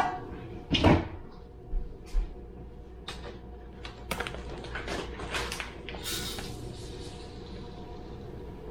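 Kitchen handling sounds while oats are weighed out: a few sharp knocks and clatters, then a run of light clicks, and about six seconds in a rustling hiss of oats being poured that fades away.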